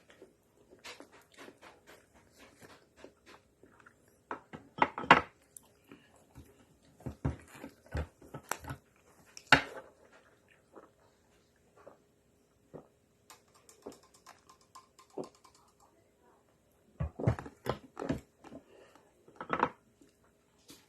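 Close-miked eating sounds from a Magnum ice cream bar: irregular wet mouth clicks and smacks with crunches of the chocolate shell, and a few louder clusters of bites.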